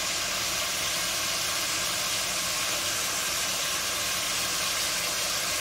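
Goat meat sizzling steadily as it browns in hot oil in a pot.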